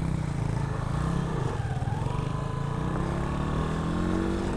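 Italika Z150's single-cylinder four-stroke engine running as the motorcycle pulls away. The pitch dips briefly, then climbs steadily as the bike accelerates over the last second or two.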